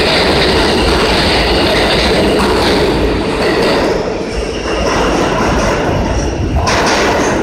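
R160 subway train pulling out of an underground station and running past the platform: loud, steady rail and wheel noise with a thin high tone above it, easing a little after about four seconds as the last car leaves the station.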